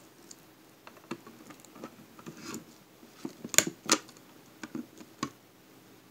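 Small plastic clicks, taps and scrapes from handling the pieces of an Xbox 360 hard drive's plastic casing, with two sharper clicks close together about three and a half seconds in.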